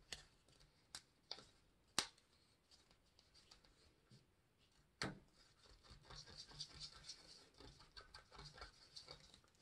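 A stir stick scraping and tapping in a small cup as acrylic paint is mixed: faint and scratchy, with a few sharp light clicks in the first half, a louder tap about five seconds in, and steady quiet scraping after it.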